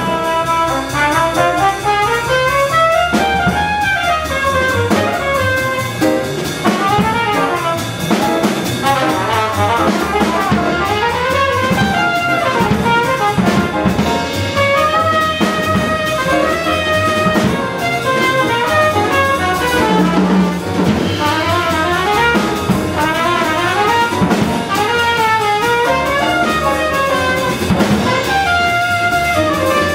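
Live small-group jazz: a trumpet plays the lead line in quick runs up and down over acoustic grand piano, double bass and drum kit.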